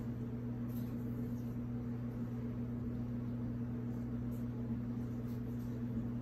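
Steady low hum at an even pitch, with a few faint soft ticks and rustles from handling.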